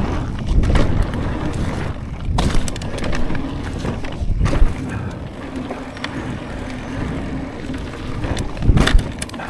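Forbidden Druid mountain bike running down a dirt jump line: a steady rush of wind on the microphone and tyre rumble, broken by four sharp thumps as the bike lands the jumps, the last near the end the loudest.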